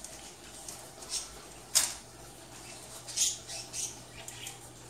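A few short, sharp clicks and scrapes from hands working at a folding rollaway bed's metal frame, the sharpest just before two seconds in and a small cluster about three seconds in.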